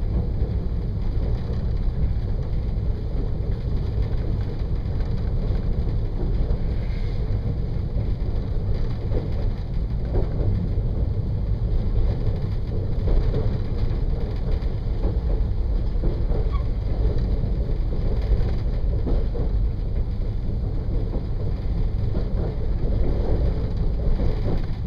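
Regional passenger train running along the track, heard on board: a steady low rumble of wheels on rails with scattered light knocks and rattles.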